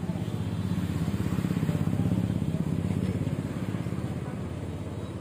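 A small engine running with an even, rapid pulse, growing louder to a peak about two seconds in and then easing off.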